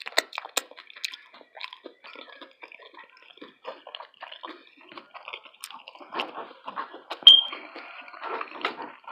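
Close-miked chewing of tacos: irregular wet smacking, squishing and small crackling mouth sounds. About seven seconds in there is one short, louder sharp sound.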